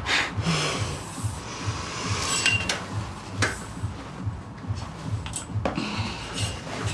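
Metal clinks and rattles of handcuffs being fastened, with rustling, over a soft low pulse of background music beating about three times a second.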